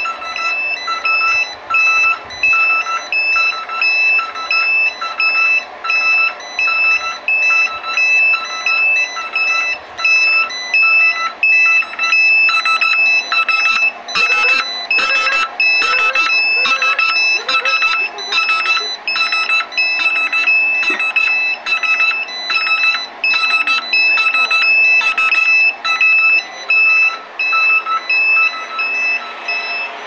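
Boiler control-panel alarm buzzer beeping in a steady on-off pattern, about two beeps a second. About midway a second, harsher pulsing buzzer joins it and stops a few seconds before the end.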